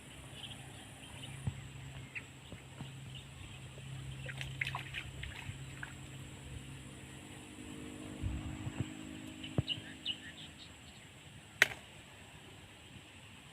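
Quiet outdoor ambience with faint water sounds and scattered short chirps, over a low steady hum that fades out about halfway through. One sharp click near the end is the loudest sound.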